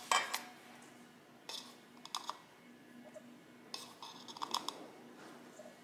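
Soft clicks and scrapes of a plastic measuring spoon against a stainless steel mixing bowl as baking powder is tipped and tapped into flour. A few short scattered bursts, the loudest cluster about four seconds in.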